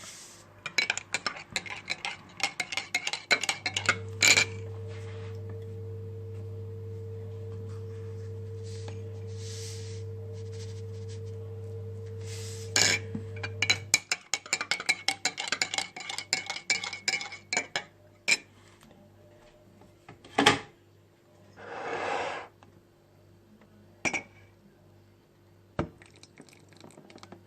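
Metal spoon clinking and tapping against a cup and dishes while coffee is made, in quick runs of light strikes with a few louder knocks. A small appliance hums steadily for about ten seconds under the clinking, stopping about halfway through.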